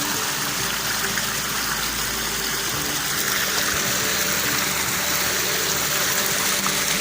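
Stream water running steadily over rocks: an even, continuous rush.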